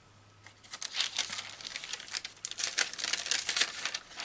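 Greaseproof paper crinkling as it is peeled back from a sheet of Angelina fibre freshly fused with an iron. The crackling comes in a rapid, dense run starting about half a second in.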